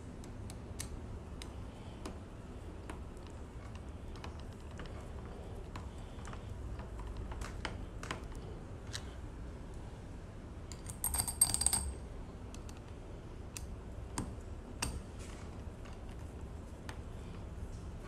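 Scattered small clicks and taps of hands handling screws, a screwdriver and a smart-lock back plate at a door, with a brief metallic jingle about eleven seconds in.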